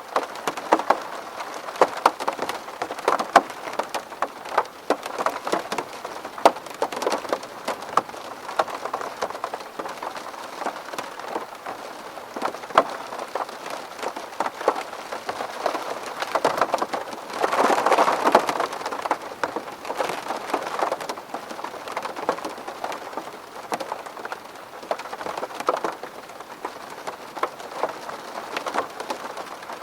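Steady rain pattering on a window pane, with a constant hiss and many sharp drop taps on the glass. The downpour swells briefly about halfway through.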